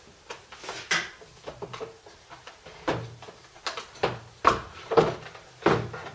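Hard plastic parts of a Karcher K2 pressure washer knocking, clacking and scraping as the internal motor and pump unit is worked loose and lifted out of its opened casing: a string of sharp knocks, the loudest a little after four and five seconds in.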